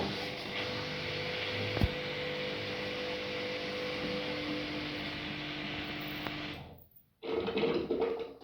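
Haier front-loading washing machine running, a steady whir with a faint held whine, with one sharp knock about two seconds in. It dies away about six and a half seconds in, and a short burst follows before it falls quiet near the end.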